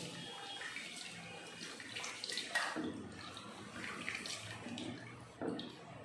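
Foxtail millet being washed by hand in water in a stainless steel bowl: swishing and rubbing in the water, with irregular splashes as handfuls are lifted and let fall back, the loudest about two and a half seconds in and again near the end.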